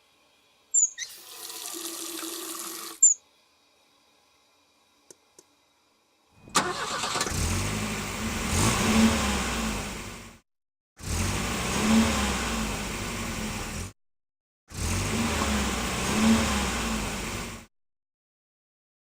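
A car engine starting and revving, played three times in a row as the same roughly three-to-four-second sound effect with short silences between. Before it come a sharp click, a couple of seconds of hum with a steady tone, another click, and two small clicks.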